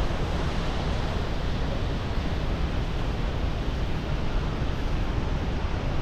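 Steady roar of Niagara Falls' falling water, with wind buffeting the microphone.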